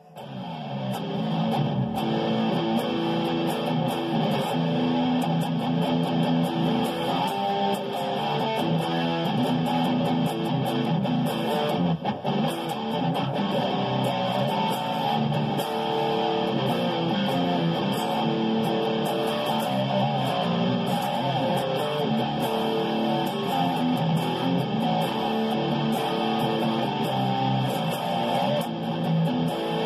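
Seven-string electric guitar, a Schecter Damien Elite 7 hybrid, played through an amplifier: a continuous riff of picked chords and notes that starts right at the beginning.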